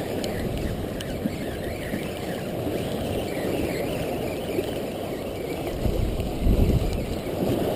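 Wind rumbling on the microphone over surf washing against jetty rocks, with a louder surge about six seconds in.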